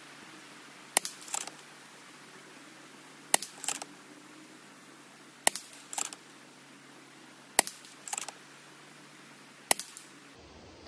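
FX Impact M3 air rifle with the FX Integrated Harmonic Barrel Tuning Shroud firing a five-shot group: five sharp cracks about two seconds apart. Each crack is followed within half a second by a fainter, shorter clatter.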